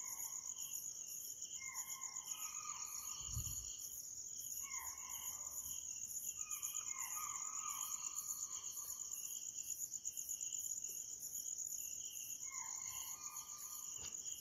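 Crickets chirping in a steady, pulsing high trill, with faint distant calls about a second long repeating every few seconds: sambar deer alarm calls, raised at a tiger or leopard nearby.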